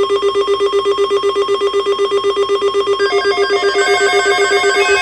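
Weather radio receiver sounding its alert for a newly issued tornado watch: a loud electronic tone beeping rapidly, about five beeps a second. About three seconds in, a second alert of stepping higher tones joins it.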